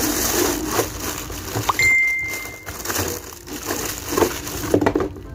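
Plastic packaging crinkling and rustling as a hair dryer and its parts are unpacked by hand, with several sharp knocks and clicks of the pieces being handled. A brief high tone sounds near two seconds in.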